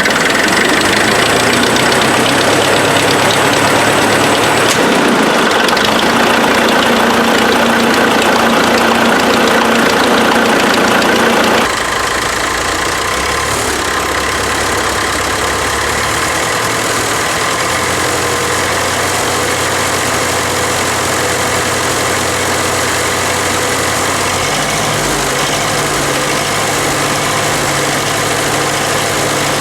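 Farmall gas-start diesel tractor engine running at idle just after starting. About 12 seconds in, its sound changes abruptly, becoming a little quieter with a different low note. Loose emblems and sheet metal on the tractor vibrate along with it.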